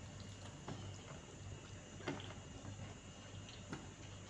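Quiet eating sounds: a few faint, irregular clicks of chewing and lip smacks as grilled tilapia is eaten by hand, over a low steady hum.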